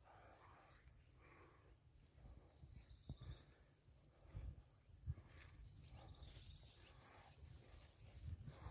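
Faint footsteps and the rustle of leaves while walking between rows of young poplar saplings. A few short, rapidly pulsed insect trills sound over a steady high insect hum.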